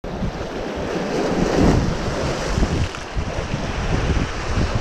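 Small waves splashing against shoreline rocks, with wind buffeting the microphone in gusty low rumbles.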